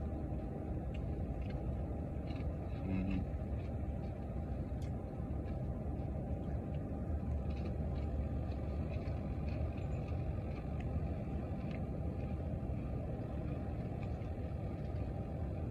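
Steady low rumble of a car's cabin with the engine running, with a few faint clicks of popcorn being chewed and a brief murmur about three seconds in.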